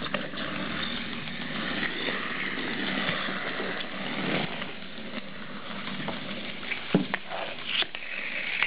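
Clockwork motor of a wind-up toy whirring with a steady buzz, with a few sharp clicks near the end.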